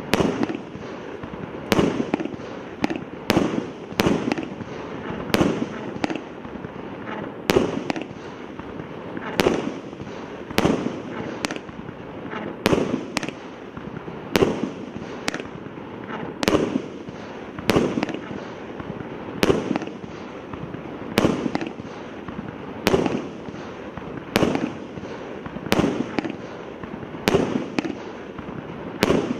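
A 300-shot consumer fireworks cake of 0.8 to 1.2 inch calibres firing shot after shot in a steady series, about one launch a second. Each shot is a sharp report followed by a short crackle as the shell bursts.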